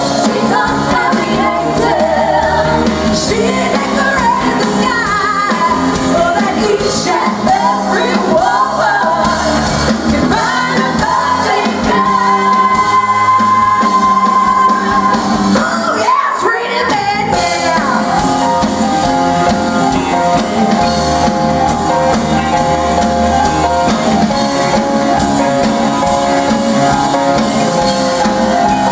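Live pop-rock band playing with belted lead vocals. The singing holds one long high note about halfway through, breaks off briefly, and then the band plays on with guitar and drums, the vocals mostly dropping out.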